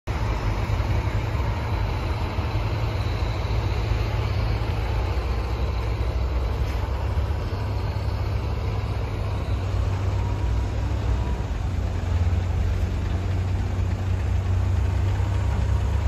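Heavy diesel engines of construction machinery running steadily, a low, even engine drone with no revving or breaks.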